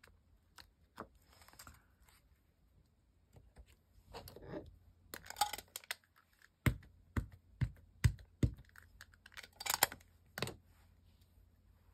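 Rubber stamps being handled and pressed onto a clear acrylic block: small clicks and brief rustles. About two-thirds of the way in come about five sharp knocks, about two a second, as a black ink pad is dabbed onto the mounted stamp, then a short rubbing patch.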